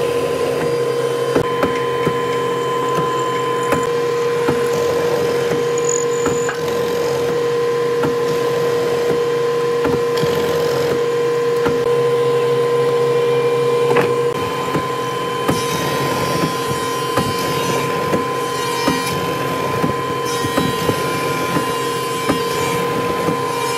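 Mortising machine running with a steady motor hum while its bit chops a mortise into a hardwood board, with frequent irregular knocks as it bites into the wood. About halfway through the hum drops a little.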